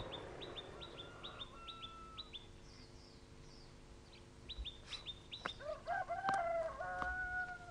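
Small birds chirping in quick runs of short high chirps, then a rooster crowing near the end, one long call that rises and then holds. It is the loudest sound, and a couple of light knocks fall around it.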